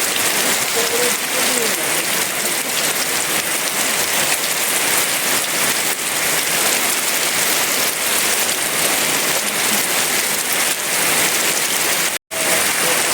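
Heavy rain falling steadily, a dense even hiss of drops on surfaces. About twelve seconds in, the sound cuts out completely for a split second and comes straight back.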